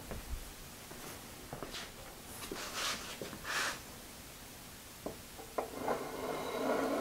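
Hand work on the milling machine's column and knee: soft rustling, two light metal clicks about five seconds in, then a rattling metal scrape that builds near the end as parts are worked along the ways.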